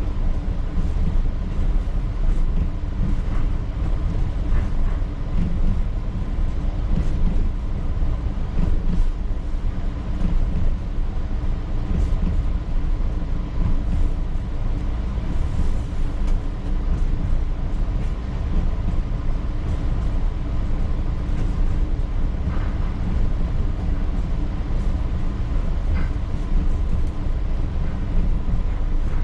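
P865 light-rail car running along the track, heard from the cab: a steady low rumble of wheels and running gear, with a faint steady hum and a few light clicks.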